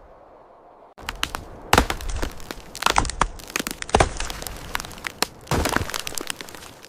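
Breaking wood cracking and snapping as a big tree comes down: a quick, irregular run of sharp cracks starting about a second in, several of them loud.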